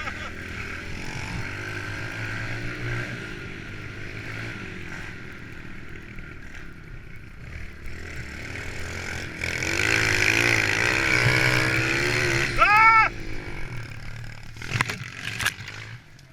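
Small single-cylinder four-stroke pit bike engines running and revving up and down as the bikes ride the track. The sound grows louder from about ten seconds in and peaks around thirteen seconds before dropping back.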